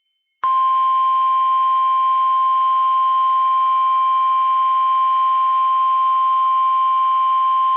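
NOAA Weather Radio 1050 Hz warning alarm tone: one steady, loud, unwavering tone that starts abruptly about half a second in. It signals that a warning broadcast, here a severe thunderstorm warning, is about to be read.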